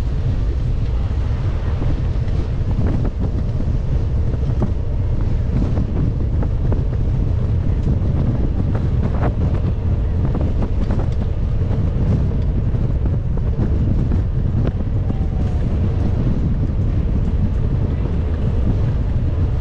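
Wind buffeting the microphone of a moving camera: a loud, steady low rumble, with a few faint ticks and brief faint whistling glides under it near the end.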